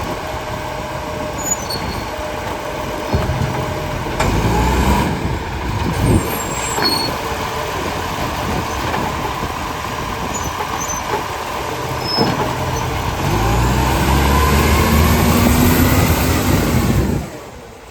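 Garbage truck engine running, with a few sharp knocks. Over the last few seconds the engine revs up and rises in pitch, then the sound cuts off suddenly near the end.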